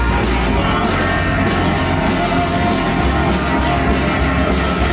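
A live rock band playing an instrumental passage between sung lines, with distorted guitar and heavy bass.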